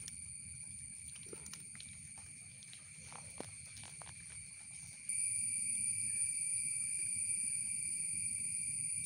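Steady high-pitched insect chorus, which grows markedly louder about five seconds in, with a few faint clicks in the first half.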